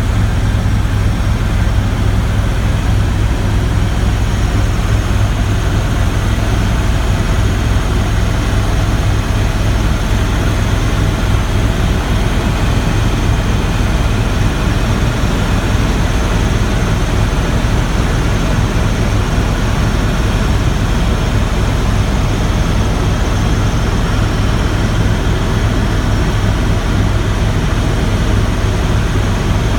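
Helicopter in flight: a steady, loud engine-and-rotor drone with a strong low hum that holds unchanged throughout.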